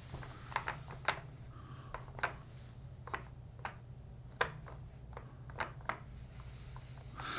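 Wooden pieces of a Japanese puzzle box being slid and pushed by hand: a string of light, irregular clicks and taps, about two a second, over a faint steady hum.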